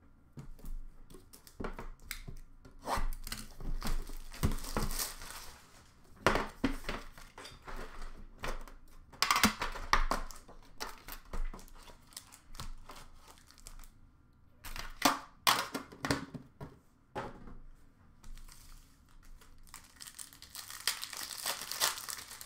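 Hockey card packs being ripped open: wrappers tearing and crinkling in repeated bouts, with sharp clicks of cards and cardboard being handled in between.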